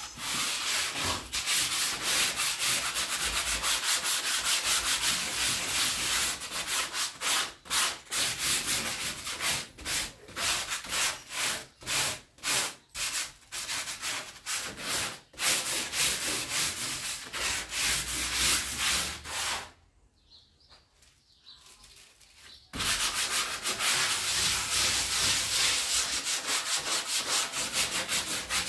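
Sandpaper rubbed by hand over rough wooden plank walls, a coarse sanding to take off splinters and rough spots. The strokes are steady at first, break into short separate runs in the middle, stop for about three seconds some two-thirds of the way through, then go on steadily again.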